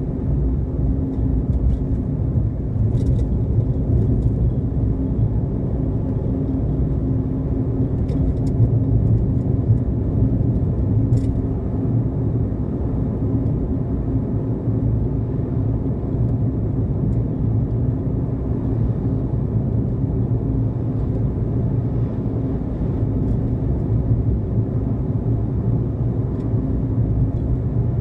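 Car driving along a road: a steady low engine and tyre rumble with a constant hum.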